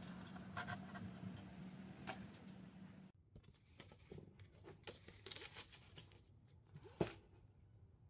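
Faint handling noises of small parts being worked by hand: light clicks and scrapes of wire and plastic over a low steady hum that stops about three seconds in. Then scattered soft taps and rustles, with one sharp knock on the bench about seven seconds in, the loudest sound.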